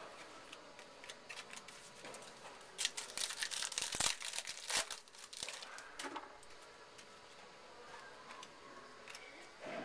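A trading-card pack's wrapper being torn open and crinkled by hand: a dense burst of crackling about three seconds in, lasting about two seconds, then a few lighter rustles and clicks.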